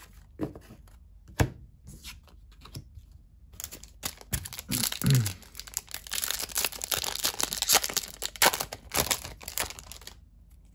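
Foil booster pack wrapper being torn open and crinkled by hand: a few scattered clicks and rustles at first, then, about four seconds in, some six seconds of continuous crinkling and tearing that stops shortly before the end.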